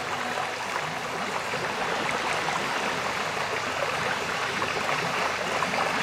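Shallow forest river running over rocks: a steady rush and splash of flowing water.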